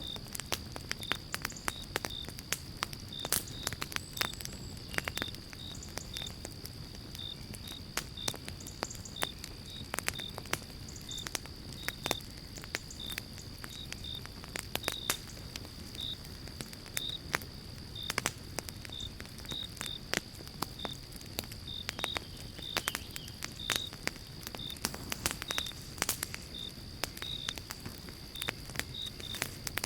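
Wood fire crackling in a fireplace: irregular sharp pops and snaps over a low, steady rumble of flames. Through it runs a steady high whine and a short high chirp repeating about twice a second.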